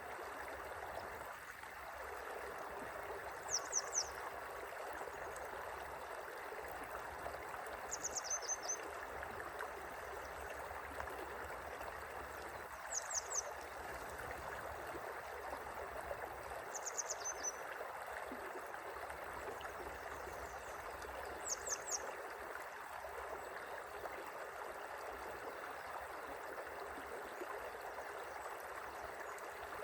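A gently flowing river, a steady rush of running water. Over it, a small bird calls five times, a quick burst of three or four high chirps about every four to five seconds.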